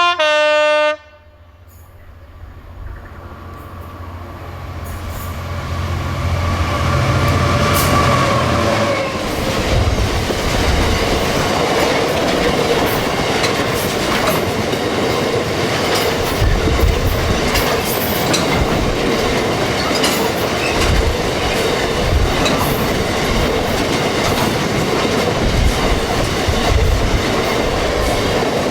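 A diesel-hauled train sounds two notes on its horn, then approaches with its engine note building, and passes for a long time with its wheels clattering and knocking over the rail joints.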